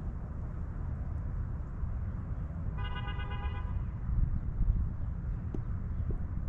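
Steady low outdoor rumble, with a single short, flat-pitched car horn honk about three seconds in.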